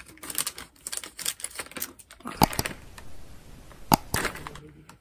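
Crinkling and rustling of a plastic snack bag being handled and opened, with two sharp mouse-click sound effects about a second and a half apart.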